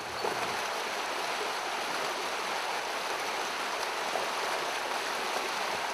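Fast, shallow river rushing over rocks and riffles: a steady, even rush of water.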